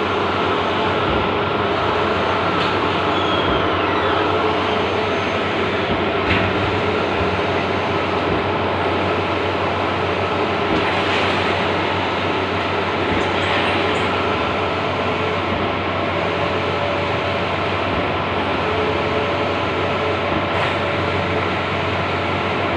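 Large-format outdoor banner printing machine running: a steady mechanical whir with a constant hum.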